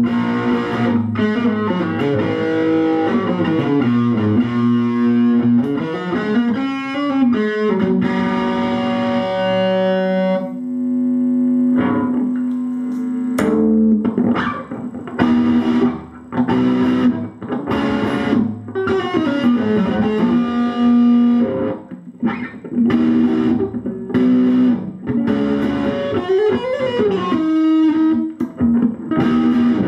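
Schecter C1 Exotic Star electric guitar played through a valve amp head's distortion channel, giving a heavy modern metal tone. Quick runs of notes with bends come first, then a note held for about three seconds, then stop-start riffing with short gaps between the hits.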